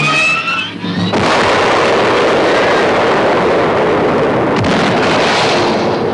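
Rising whistling tones, then about a second in an explosion sound effect: a sudden loud blast of noise that holds steady for about five seconds before fading.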